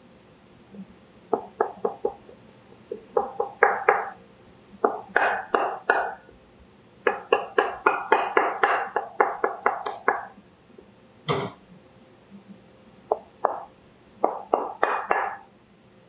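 A soft-faced mallet tapping repeatedly on a metal vacuum-window flange to knock a stuck optic loose from its mount. The sharp knocks come in bursts of several a second, with a quick run in the middle and one heavier blow about two-thirds of the way through.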